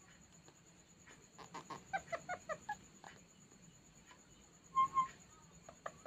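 Rose-ringed parakeet giving a quick run of about eight short chattering notes, then, a couple of seconds later, two short clear whistled notes.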